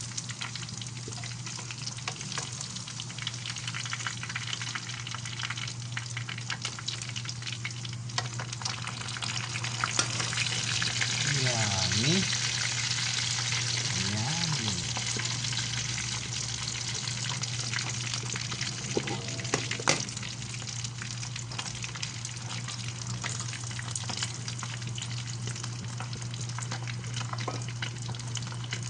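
Bangus (milkfish) frying in hot oil in a pan: a steady sizzle full of small crackles and pops, growing louder for a few seconds around the middle.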